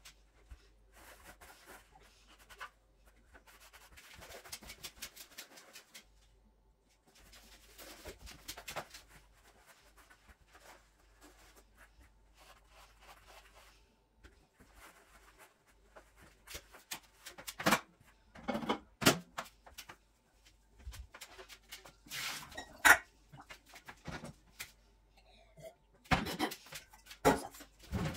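Household cleaning sounds: soft rubbing and light clicks at first, then sharper irregular knocks and clacks of hard objects being handled and set down, louder in the second half.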